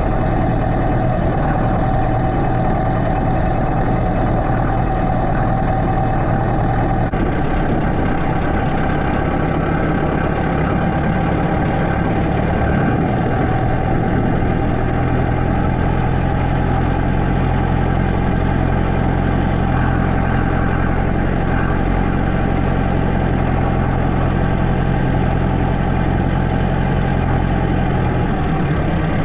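Massey Ferguson tractor's diesel engine running steadily, its tone shifting about seven seconds in.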